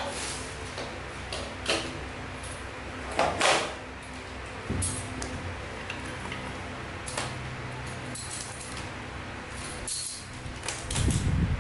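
Handling noises as a power cord and plug are handled and connected: scattered clicks and scrapes, a louder scrape about three seconds in, and a few dull knocks near the end.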